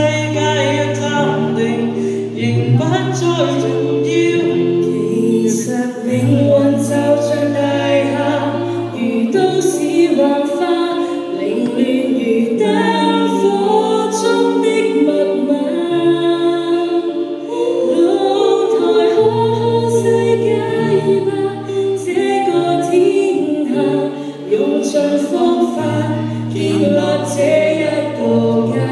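Choir singing unaccompanied in several-part harmony, with long held low bass notes under the upper voices.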